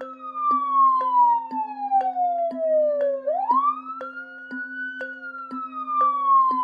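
Police car siren in a slow wail: the pitch falls steadily for about three seconds, sweeps quickly back up, then falls slowly again. Underneath, a steady low tone carries a ticking about twice a second.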